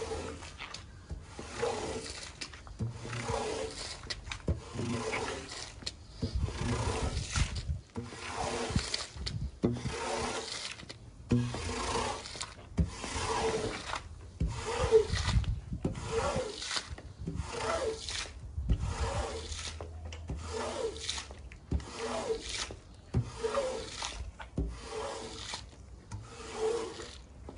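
A long-handled squeegee scraper dragged again and again across a soaked, soapy carpet, rasping as it pushes the dirty wash water out of the pile, at about one stroke a second.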